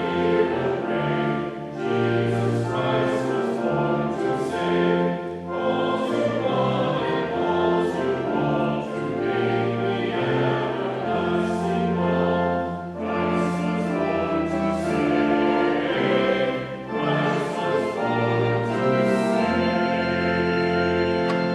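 Many voices singing a hymn together in chorus, in sustained chords that change every second or two.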